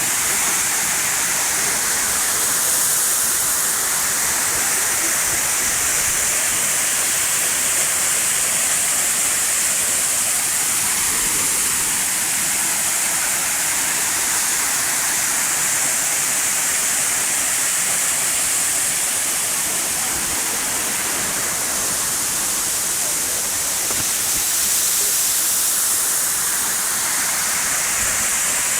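Dzhur-Dzhur waterfall: a steady, hissy rush of falling water that holds an even level throughout.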